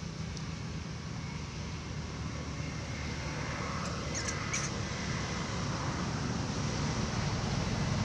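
A steady low rumble of outdoor background noise, with a few faint high chirps about four seconds in.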